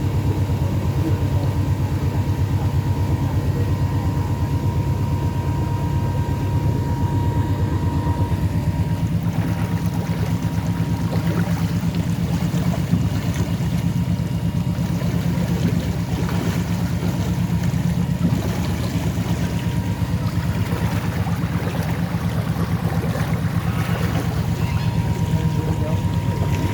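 Cruise boat's engine running steadily under way, a deep even drone with a fast regular pulse.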